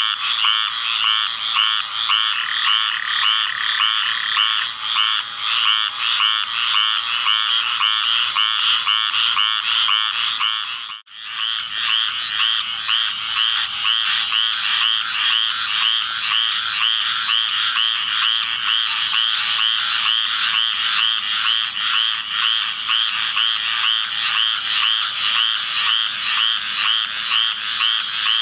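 A large chorus of squirrel treefrogs (Hyla squirella), many males calling at once in dense, overlapping, rapidly repeated calls, stirred into calling by summer thunderstorms. The sound drops out for a moment about eleven seconds in, then the chorus carries on.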